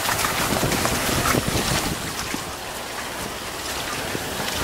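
Wind noise on a microphone mounted on the outside of a moving Range Rover L405, with scattered crackles and clicks from its tyres rolling over twigs, leaves and mud on a woodland track.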